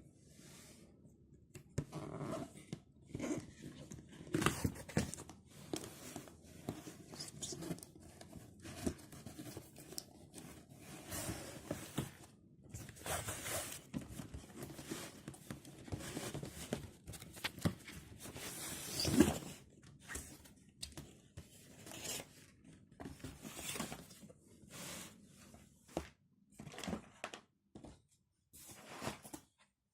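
Packaging being torn and handled: irregular tearing and rustling strokes with clicks, the loudest about nineteen seconds in.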